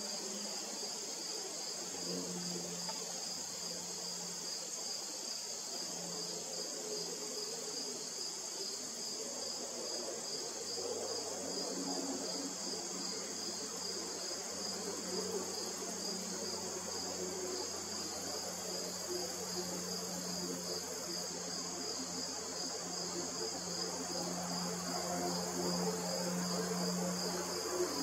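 Steady, high-pitched chorus of insects trilling without a break. A faint low hum comes and goes underneath.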